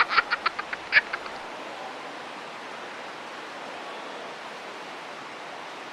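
Steady, even background hiss, with a quick run of about eight short, high chirps in the first second and a slightly louder one right after.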